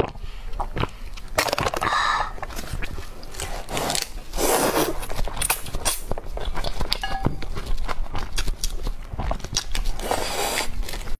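A person slurping noodles from a spicy broth, three long noisy slurps, with wet chewing and small mouth clicks between them.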